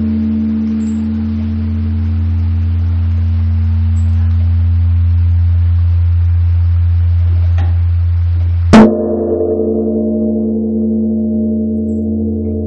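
Large bronze Korean Buddhist temple bell (beomjong) ringing with a deep steady hum and several higher tones above it. It is struck once about nine seconds in by its swung wooden log, and the fresh strike's tones ring on.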